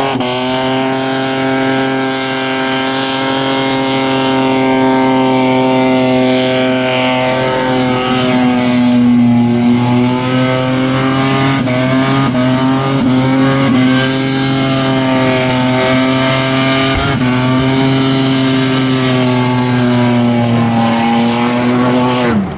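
Holden VN Commodore's Buick V6 held at high revs through a burnout, a steady high engine note over the hiss of spinning tyres, dipping briefly a few times. Near the end the revs drop off sharply.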